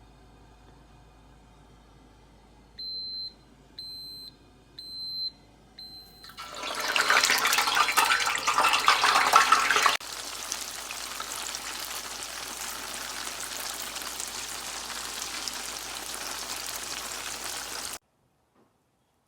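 Four short, high electronic beeps, then the loud crackling hiss of tofu deep-frying in hot oil. After an abrupt change the frying goes on as a steadier, quieter sizzle with a faint low hum, and cuts off suddenly near the end.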